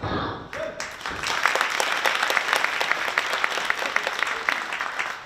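Wrestling crowd applauding and clapping, swelling in about a second in, as a pin attempt ends without the count being completed.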